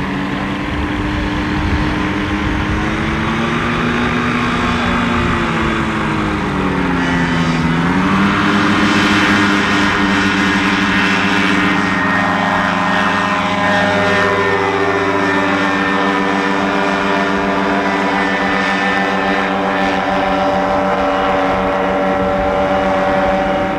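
Ultralight aircraft engines and propellers buzzing, more than one at a time, their pitch rising and falling with the throttle. One passes close about nine seconds in, loudest there, and its pitch drops as it goes by; a steadier engine note follows as a plane climbs out.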